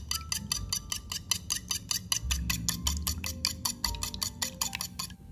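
Wire whisk beating egg yolks in a bowl, its wires clicking against the bowl's side in a fast even rhythm of about six strikes a second that stops shortly before the end. Faint background music underneath.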